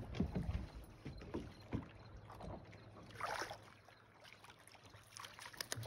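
Faint water lapping against a small boat's hull, with scattered small clicks and a brief rush of noise about three seconds in.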